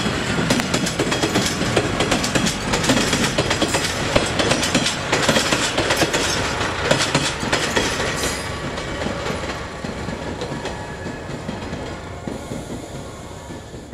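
KiRo 185 series diesel railcars rolling past, with repeated clacking of the wheels over rail joints under a steady running noise. The sound thins and dies down over the last few seconds as the cars go by.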